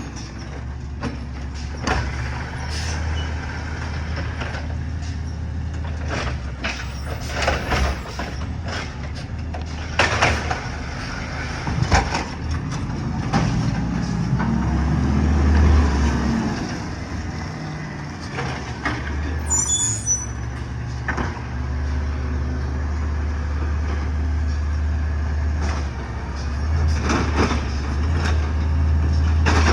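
Heavy diesel garbage truck running with a steady low engine drone and repeated knocks and clanks. The engine swells louder for a couple of seconds around the middle, and there is a brief high squeal about two-thirds through.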